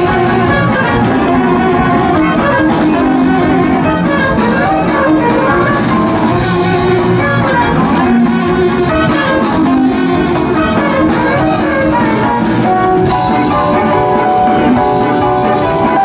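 Loud instrumental music playing steadily, with a beat; long held notes come in near the end.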